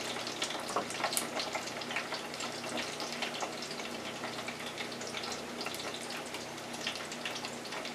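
Steady sizzling of french fries deep-frying in hot oil in an electric deep fryer, with many small crackles and a faint low hum underneath.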